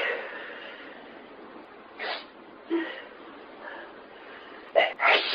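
A person in a sneezing fit: a sneeze fading out at the start, short sharp outbursts about two seconds in, and two quick sneezes close together near the end.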